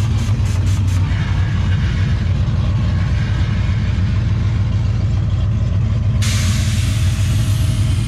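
Chevrolet Silverado pickup's engine running with a steady low rumble as the truck pulls away. There are a few quick ticks in the first second, and a loud hiss starts suddenly about six seconds in and carries on.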